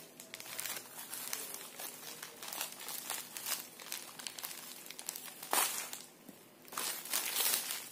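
Plastic packaging crinkling and rustling in the hands as an outer packet is cut open and the sealed surgical-glove pouches inside are pulled out and handled, in irregular crackles with a sharper rustle about five and a half seconds in and a denser burst of crinkling near the end.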